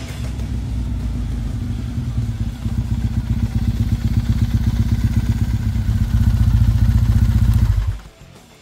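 2009 Triumph Bonneville T100's 865 cc carburetted parallel-twin engine running as the motorcycle rides toward the listener. It grows steadily louder as it approaches, then cuts off abruptly about eight seconds in.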